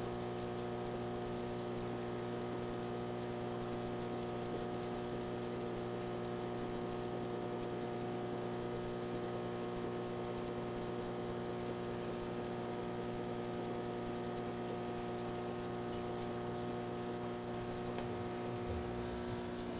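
Steady electrical hum made of several unchanging tones, over a faint even hiss.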